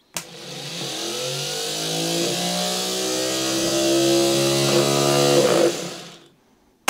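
Starter motor on a Reliant Regal 600cc engine, jumped straight from a battery: a click as the lead makes contact, then the motor spins up in a rising whine, runs steadily for about five seconds and stops. It spins freely without its drive pinion pulling in to turn the engine, a sign the pinion mechanism is sticky after years of standing.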